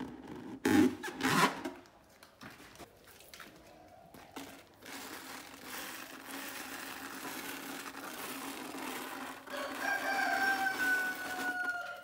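Handling noise as hands press a rubber balloon onto water in a plastic bucket, with two loud rubbing bursts about a second in. Near the end a rooster crows once, one long call that falls slightly in pitch.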